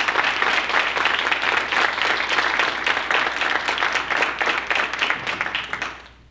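Audience applauding, a dense steady patter of many hands that dies away near the end.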